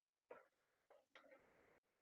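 Near silence, with a few faint, indistinct short sounds.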